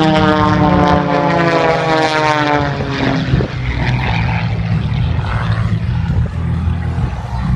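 Propeller airplane flying past: a loud engine-and-propeller drone whose pitch slowly falls for about three seconds, then gives way to a broad rumble as it goes by.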